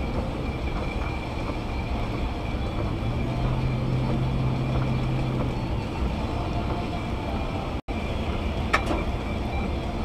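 Car driving on a wet road, heard from inside the cabin: steady tyre and road rumble with engine hum, and a low engine tone that stands out for a couple of seconds in the middle. Near the end the sound cuts out for an instant, and a short click follows.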